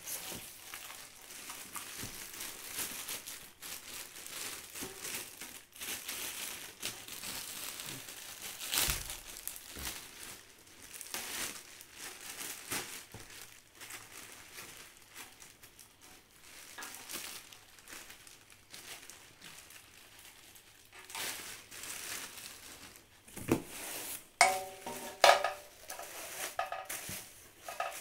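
Plastic wrapping crinkling and rustling as a German silver puja piece is pulled from its box and unwrapped. Near the end come a few sharp metallic clinks that ring on briefly as the silver pieces knock together.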